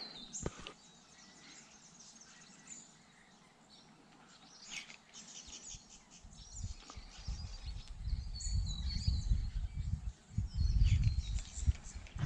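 Scattered high bird chirps from the bush over a quiet background, then from about halfway in a low, uneven rumble that becomes the loudest sound.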